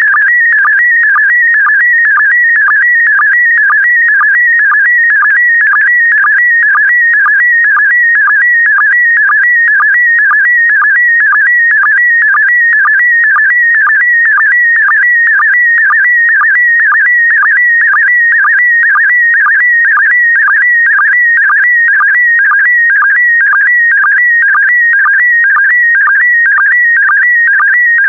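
PD120 slow-scan television (SSTV) image signal: a loud, continuous, fast-warbling whistle-like tone that jumps about quickly in pitch as it carries the picture lines. It is broken by a short low blip about twice a second, the sync pulse that starts each new pair of scan lines.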